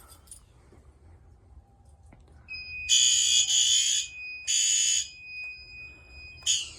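Fire alarm horns sounding a few short, loud blasts, with a steady high tone running beneath them, starting about two and a half seconds in after a pull station is pulled. In audible walk test this brief sounding is the panel's confirmation that the pull station's activation registered.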